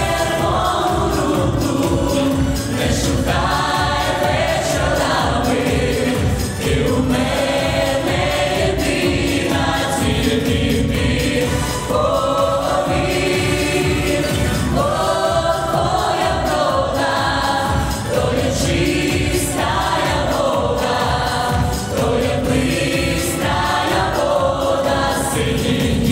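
A pop vocal ensemble of young women and a man singing together in parts into microphones over amplified backing music with a steady beat.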